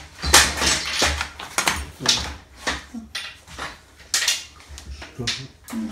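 Clattering and rustling as a faux-wood venetian blind's headrail and slats are handled and moved, in a series of separate bursts, some with a dull knock underneath.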